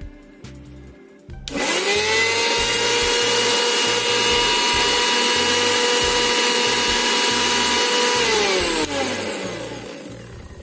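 Bajaj GX 1 mixer grinder's universal motor switched on about a second and a half in, spinning up quickly to a steady, loud high whine, then switched off and winding down with a falling pitch near the end.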